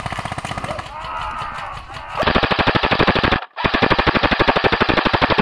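Airsoft gun firing on full-auto close by, a fast even rattle in two long bursts separated by a brief pause, the second still going at the end. Before that, fainter rapid airsoft fire rattles from elsewhere, with a distant shout.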